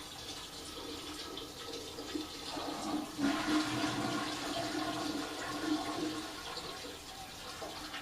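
Toilet being flushed: a light trickle of water, then about three seconds in a rush of water into the bowl that carries on for a few seconds and eases off near the end.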